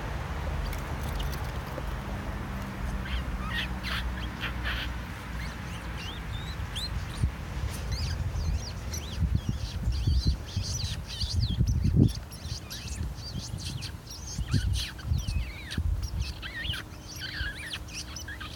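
Small birds chirping and calling, many quick high chirps that start sparse and become a busy chorus about halfway through, over a low rumble with a few dull low thumps.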